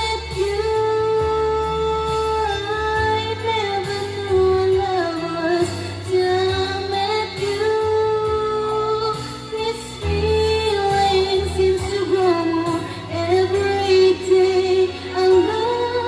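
A woman singing a slow song close into a condenser microphone, holding long notes, over an instrumental backing track.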